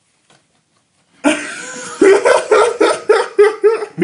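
A person laughing hard, starting about a second in and going on in quick repeated bursts, about five a second.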